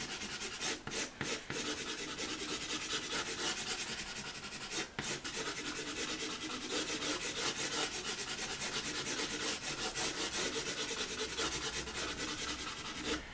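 Pastel pencil scratching across textured pastel paper in quick, short strokes as foreground grass is drawn in, with a brief pause about five seconds in.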